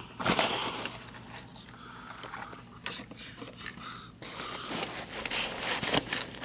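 Rustling and scraping of a plastic-windowed cardboard box being handled, with irregular clicks and knocks. Louder bursts come just after the start and again in the last couple of seconds.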